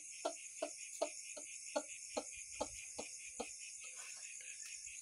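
A man's voice in short rhythmic pulses, about two or three a second, growing fainter and stopping about three and a half seconds in, over a steady chirring of crickets.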